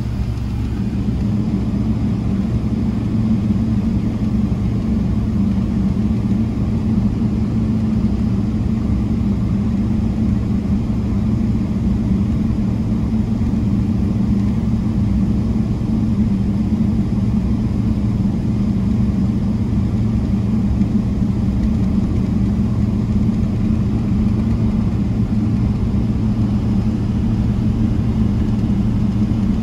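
Steady low cabin hum inside a Boeing 777-300ER on the ground before takeoff, its GE90-115B engines running at low power. It grows a little louder over the first couple of seconds, then holds even.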